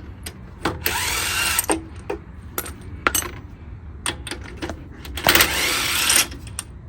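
Impact wrench spinning loosened lug nuts off a car wheel in two bursts of about a second each, with metallic clicks and knocks between them.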